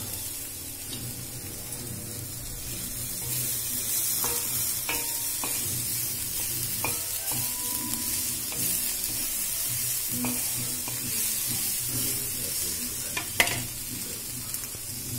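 A flat spatula stirring and scraping sprouted chickpeas, moong, chopped onion and coriander on a black iron tawa over a steady hiss, with a few short clicks of the spatula against the pan and one louder knock near the end.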